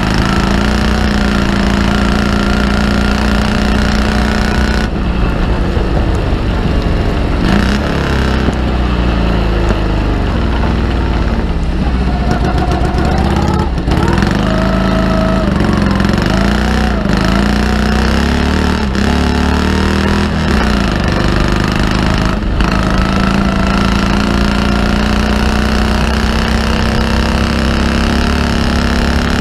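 Morgan Super Aero three-wheeler's V-twin engine running hard under race load, recorded on board. About five seconds in the note drops, then falls and rises again in steps with short breaks, as it slows and changes gear. After about twenty-two seconds it pulls steadily again with the revs slowly climbing.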